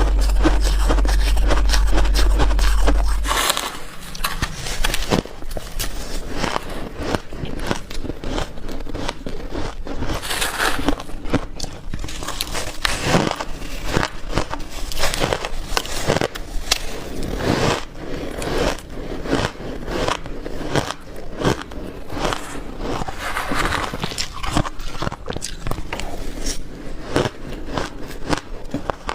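Close-up biting and chewing of soft, powdery freezer-frost ice: many irregular sharp crunches and crackles. A steady low hum sounds under them for the first three or four seconds and then stops.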